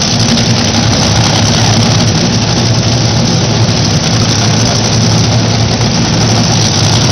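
Top Fuel dragsters' supercharged, nitromethane-burning V8 engines idling on the starting line, loud and steady with no launch or rev.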